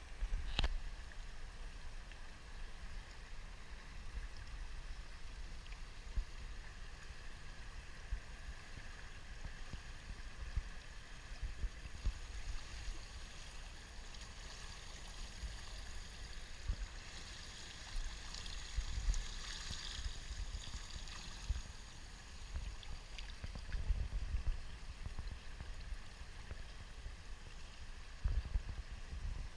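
Outdoor pool water lapping and trickling, with irregular gusts of wind rumbling on the microphone and a sharp tap about half a second in.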